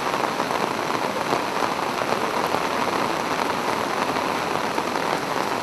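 Swollen, muddy flood stream rushing past as a steady noise of water.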